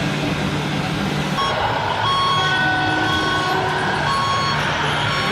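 RC construction truck engine sound running steadily, joined about a second and a half in by repeated reversing beeps.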